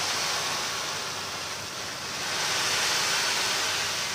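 Dry uncooked rice grains rustling in a continuous rushing hiss as hands sweep through a heap of loose rice and more rice is poured from a bag onto the pile.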